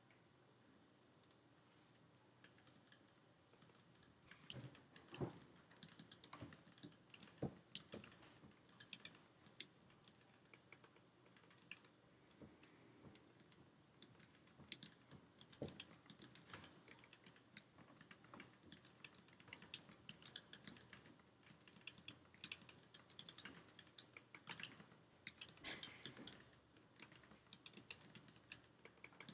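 Typing on an Iris split mechanical keyboard: an irregular stream of key clicks at an everyday typing pace. It starts with a few scattered keystrokes and becomes steady from about four seconds in.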